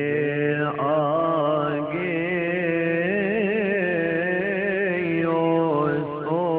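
Religious chant sung in long, wavering, melismatic notes over a steady low held tone.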